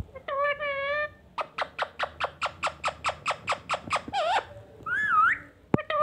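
Indian ringneck parrot calling: a short warbled call, then a fast, even run of about fifteen sharp chirps, then two swooping whistles near the end.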